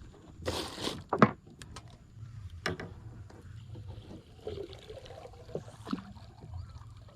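Small fishing boat sounds: a short rush of noise about half a second in, then a few sharp knocks against a low background rumble.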